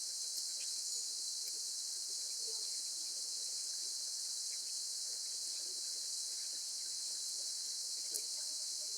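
Steady, high-pitched chorus of insects such as crickets, an unbroken hiss with faint scattered ticks beneath it and a single small click near the end.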